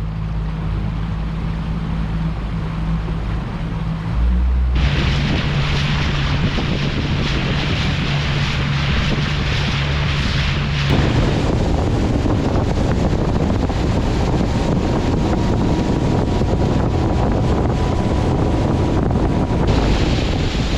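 Small boat under way with its motor running steadily. About five seconds in, a loud rush of wind on the microphone and water along the hull comes in and continues over the motor.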